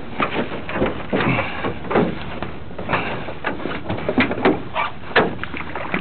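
Small aluminum rowboat being rowed: irregular knocks and creaks from the oars working in their oarlocks and against the hull, with water splashing.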